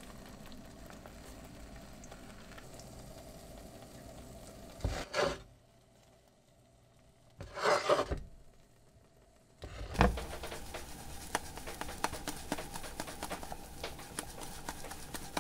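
Cooking in a frying pan: a couple of brief bursts of handling and scraping, broken by edited gaps of dead silence, then a knock about ten seconds in and food sizzling and crackling in the pan.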